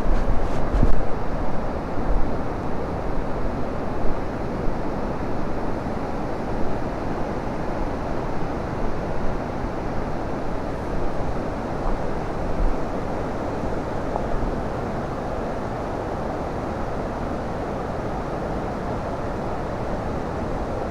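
Wind rushing over the microphone of a moving Yamaha Serow 250 trail bike, with the bike's engine low underneath. The noise is gusty at first and settles to a steady rush over the last several seconds.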